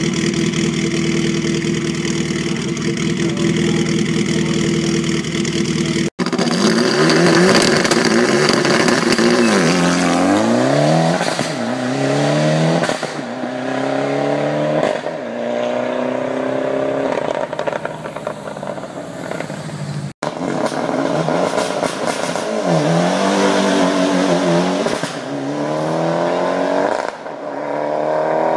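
A rally-prepared Mitsubishi Lancer's turbocharged four-cylinder engine idling steadily at a hillclimb start line. After a cut, race cars launch and accelerate hard away up the hill, the engine pitch climbing through each gear and dropping at every upshift, heard twice.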